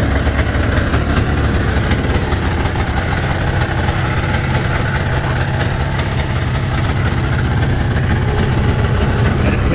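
Yamaha VK540 snowmobile's two-stroke twin engine running steadily just after a cold start, warming up.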